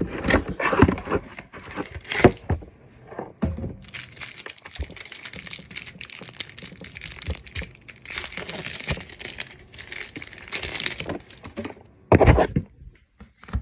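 A cardboard trading-card hanger box being torn open, its packaging crinkling, tearing and rustling, with several handling knocks, the loudest near the start and again near the end.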